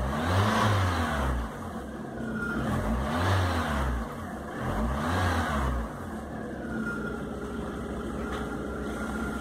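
Citroën Xsara Picasso engine revved three times in quick succession, each blip rising to about 2,200 rpm and falling back, then settling into a steady idle at about 870 rpm for the last few seconds.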